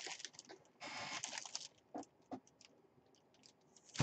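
Clear plastic bag crinkling as a hand handles the football sealed inside it, with a longer rustle about a second in and a few short crackles after.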